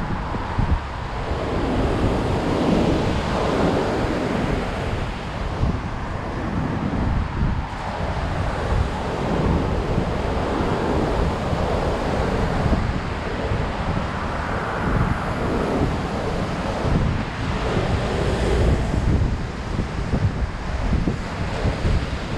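High surf breaking on a beach, the waves swelling and washing in over and over under strong wind, with wind buffeting the microphone in a constant low rumble.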